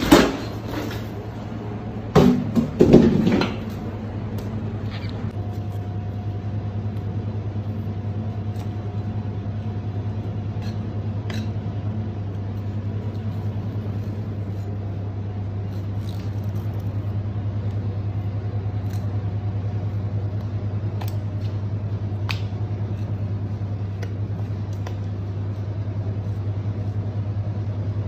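Whole bonito tipped out of a polystyrene fish box onto a work table, landing in loud clattering slaps at the start and again about two to three seconds in. After that, a steady low machine hum carries on, with occasional light clicks from knife work as the fish are filleted.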